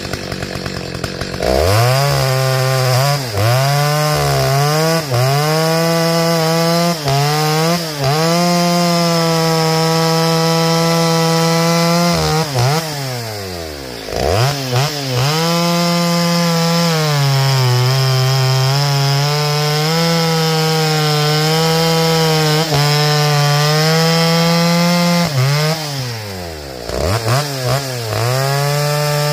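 Stihl 029 two-stroke chainsaw with a muffler mod, running a wide-tooth Archer chain, revs up about a second and a half in and cuts through a log, its pitch sagging and wavering under load. The engine drops back toward idle twice, about halfway and near the end, and each time revs back up into the cut.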